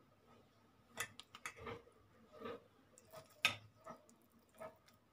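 Faint handling sounds of brinjals being stuffed with dry, crumbly masala over a steel bowl: scattered light taps and clicks, the sharpest about three and a half seconds in, with soft rustling of the filling between them.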